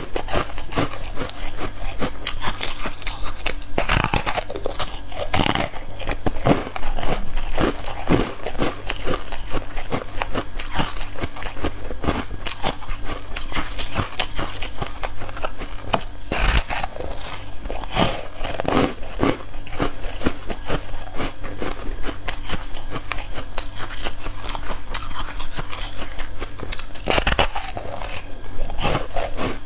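Close-miked biting and chewing of foam ice, a steady run of crisp crunches, with a few harder bites standing out now and then.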